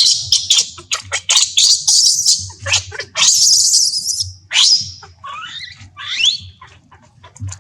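Baby monkey crying: a fast string of short, high-pitched squeaks, then one long shrill scream a little past three seconds in, followed by a few squeals that glide up and down in pitch.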